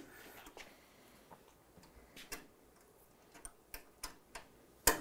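Faint, irregular metal clicks of a small hand driver tightening the screw that holds a Rocket Appartamento espresso machine's side housing panel, with one sharper click near the end.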